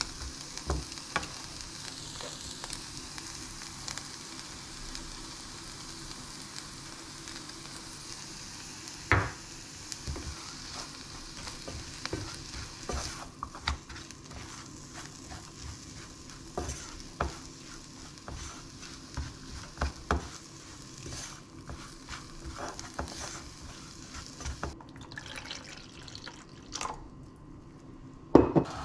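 Chopped broccoli sizzling in a non-stick pot while a spoon stirs it, scraping and tapping against the pot. A louder knock comes about nine seconds in and the loudest one just before the end. The sizzling dies away over the last few seconds.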